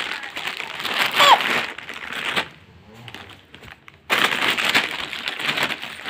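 Plastic snack packet crinkling as it is shaken, in two spells with a pause of about a second and a half between them. A short high voice glides up and down about a second in.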